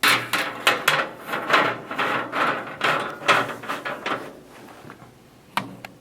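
Snack vending machine tray parts being handled: spiral coil, auger coupling and motor. There is a quick run of clattering, scraping and clicking, then one sharp click near the end.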